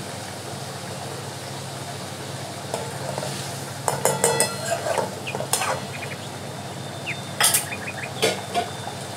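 A metal spoon stirring a simmering mustard fish curry in a metal kadai, clinking and scraping against the pan in two spells, about four seconds in and again a second or so before the end. The curry sizzles gently underneath, over a steady low hum.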